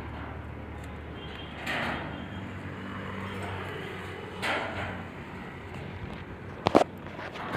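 Vehicle engine idling with a steady low hum as a car is loaded up a car-carrier truck's ramp. Two short rushing swells come about two and four and a half seconds in, and a sharp double knock, the loudest sound, comes near the end.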